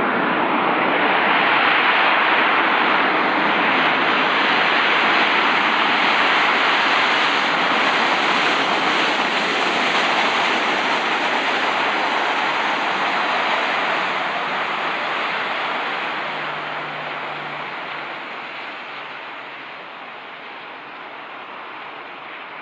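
Boeing 737-800's CFM56-7B turbofan engines at taxi power: a steady jet rush that fades over the last several seconds as the airliner moves away.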